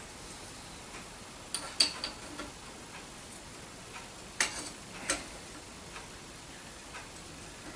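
A few sharp clicks and knocks of a 1967 Hoover Senior 652A vacuum cleaner's parts being handled and fitted together: a small cluster about a second and a half in, then two more louder ones around four and a half and five seconds.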